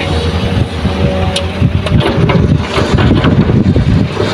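Kobelco SK200 excavator's diesel engine running steadily as the loaded bucket swings over the dump truck. From about two seconds in, soil and rocks tip from the bucket into the truck's bed with a louder rumbling clatter.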